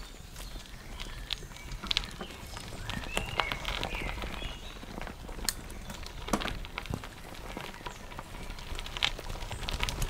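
Bicycle tyres rolling down a gravel path, crunching and crackling, with irregular clicks and rattles from the bike over the bumps.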